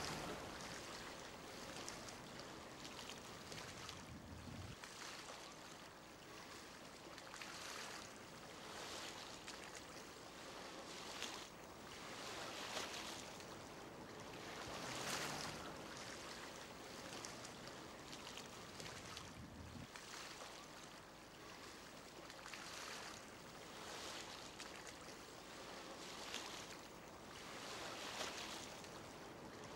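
Faint waves washing in and drawing back, a soft swell of water noise about every two seconds.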